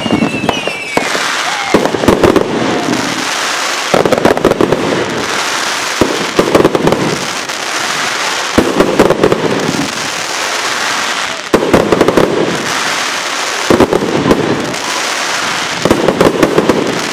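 Fireworks going off in a regular series, a cluster of sharp bangs about every two seconds, each followed by a spell of dense crackle. Falling whistles fade out right at the start.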